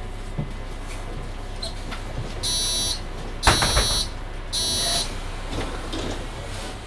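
Three electronic warning beeps, each about half a second long, from a Mercedes-Benz Citaro C2 hybrid city bus's door warning buzzer. There is a loud knock at the second beep, over the steady low hum of the bus.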